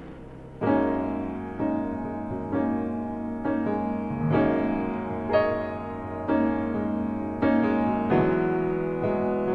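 Background music: a piano playing chords, a new chord about once a second, coming in just over half a second in after a fading wash of noise.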